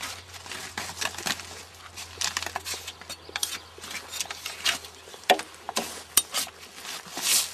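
Drawknife peeling bark off a round log: short, irregular scraping strokes of the blade along the wood, with one longer, louder stroke near the end.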